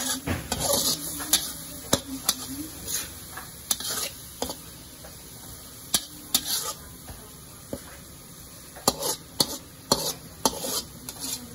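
Metal spatula scraping and clinking against a metal wok as tomatoes, onion and shrimp paste are stir-fried, over a light sizzle. Sharp, irregular clicks, coming more thickly near the end.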